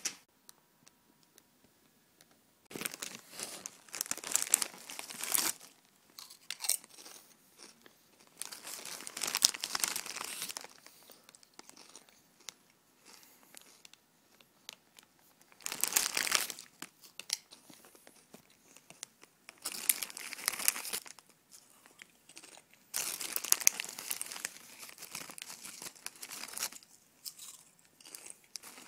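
Plastic potato-chip bags crinkling and chips being crunched and chewed. The sound comes in separate bursts every few seconds.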